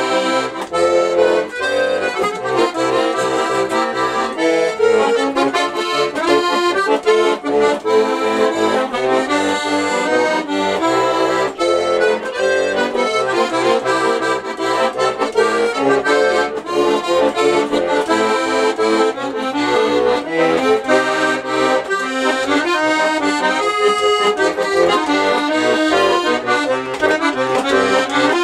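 Bayan (Russian chromatic button accordion) playing an instrumental passage of a song, a right-hand melody over a rhythmic left-hand bass accompaniment.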